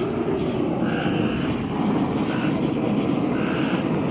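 Forge burner flame running with a steady low rush that does not change.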